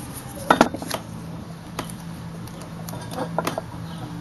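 Hands handling and fitting bent steel exhaust tube sections: a few sharp clicks and knocks, the loudest about half a second in and a quick cluster near the end, over a steady low hum.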